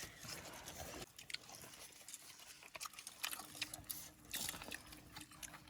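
Faint chewing and crunching of food, heard as scattered small clicks over a low hiss.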